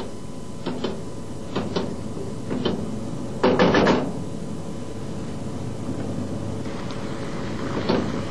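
Wooden spoon stirring a reducing sauce in a metal pot, tapping against the pot's side in pairs of light knocks about once a second, with a louder burst of scraping and clatter about three and a half seconds in. A steady hum and hiss runs underneath.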